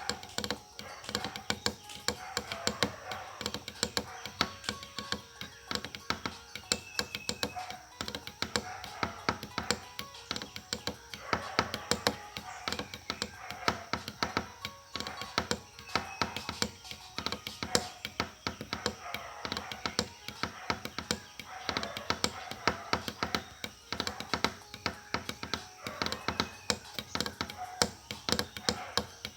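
Rapid, irregular clicking and tapping throughout, over faint music.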